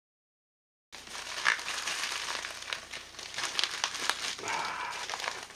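Packing wrapping crumpled and pulled apart by hand, a crinkly rustle with many small crackles. It starts about a second in, after a dead-silent gap.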